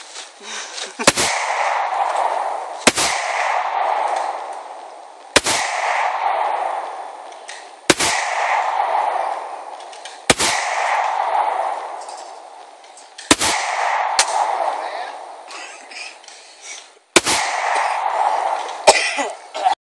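.45 pistol fired eight times in slow, single aimed shots, spaced roughly two to four seconds apart. Each sharp crack is followed by a hiss that fades over a second or two.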